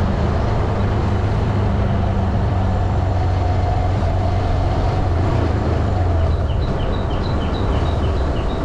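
Motorcycle engine running steadily at cruising speed, with wind and road noise on the microphone. Near the end, a run of about eight short high chirps sounds over it.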